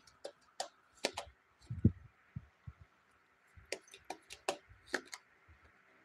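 Tarot cards being shuffled by hand and laid down on a cloth-covered table: a scattered run of quick card snaps and taps, with a few soft thuds a little under two seconds in.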